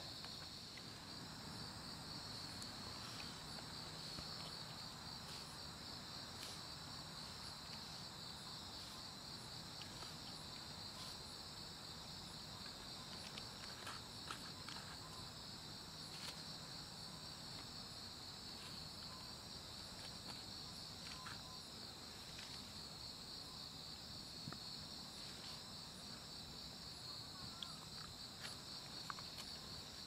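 Crickets chirping steadily in a high, pulsing chorus, with a few faint taps and rustles from hands making lettuce wraps of raw fish.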